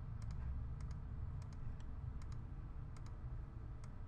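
Computer mouse clicks: about a dozen short, light clicks, many in quick pairs, over a steady low rumble.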